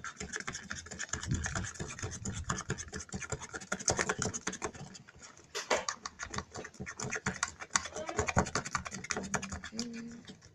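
Glue for slime being stirred and scraped in a small plastic pot: quick, irregular scratching and clicking that stops near the end.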